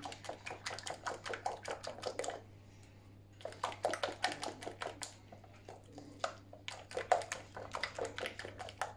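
Wire whisk beating a thin batter in a mixing bowl: quick clicking strokes of the wires against the bowl, in three bursts with short pauses between.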